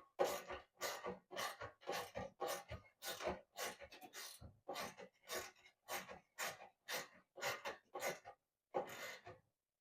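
Steady back-and-forth rubbing or scrubbing strokes, about two a second, as parts are worked by hand.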